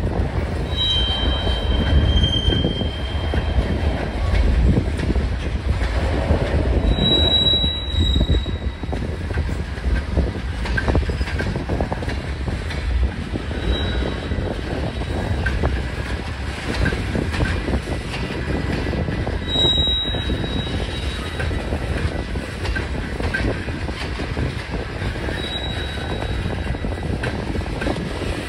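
Freight train of tank cars rolling past: a steady rumble of steel wheels on rail, with short high-pitched wheel squeals coming and going about five times.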